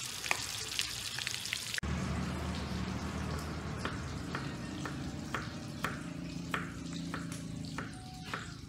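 Chicken frying in hot oil in a wok, sizzling and crackling; about two seconds in it gives way to a knife chopping garlic on a wooden chopping board, sharp knocks about twice a second.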